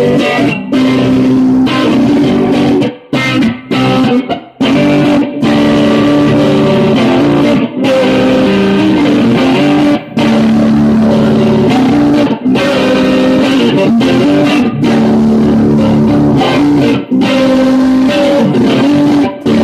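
A man playing electric guitar and singing live. The playing breaks off briefly a few times around three to four seconds in.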